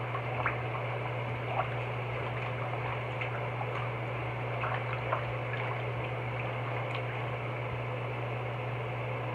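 Sink tap running steadily, filling a sink with lukewarm water.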